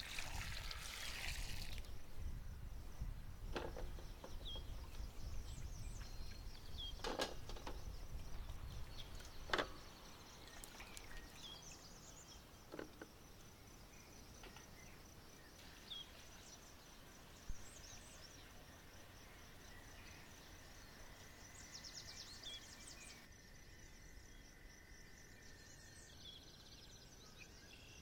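Quiet outdoor ambience: a steady high-pitched insect trill with scattered bird chirps. A few sharp knocks or clinks sound in the first half, over a low rumble that fades about ten seconds in.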